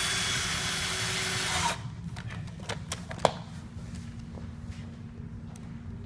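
Power drill driving a screw, running steadily for about a second and a half before it stops, followed by a few light clicks and one sharp knock about three seconds in as the part is handled.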